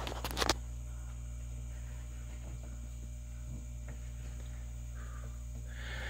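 Low, steady hum of a running mini fridge, with a few quick clicks in the first half second as the thermostat dial inside is handled.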